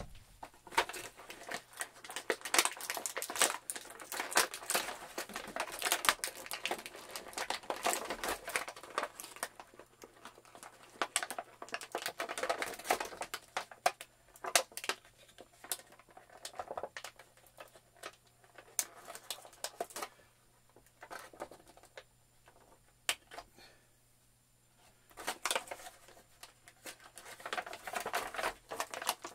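Plastic and cardboard action-figure packaging crinkling and crackling as it is handled and pulled open, in irregular rustles and sharp clicks, with a quieter few seconds about two-thirds of the way through.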